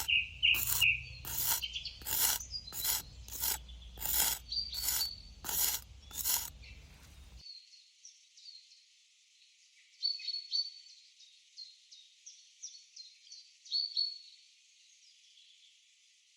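Birds chirping and singing, joined for the first seven seconds by a steady low rumble and a series of about nine sharp knocks, roughly one every 0.7 s.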